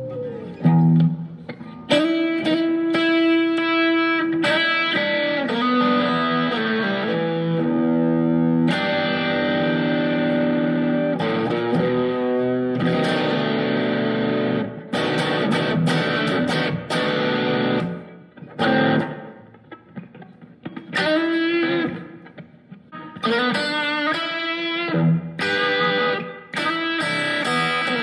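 Electric guitar played through a Sonicake Matribox II Pro multi-effects processor preset: held chords and single-note phrases, with short breaks between phrases in the second half.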